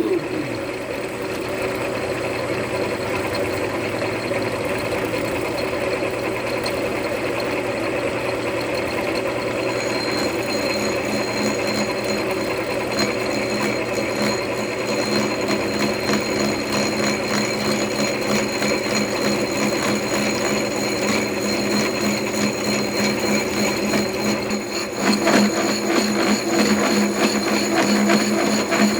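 Milling machine running with its cutter taking a cut in metal, a steady machining sound with a rapid fine chatter. Higher tones join about ten seconds in, and the cut gets a little louder near the end.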